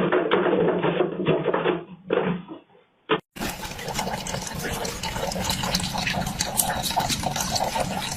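Steady rush of running water, like a tap flowing, starting abruptly a little over three seconds in after a brief gap.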